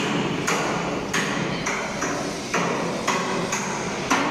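Hammer blows on steel, about eight irregular strikes roughly two a second, each with a short metallic ring.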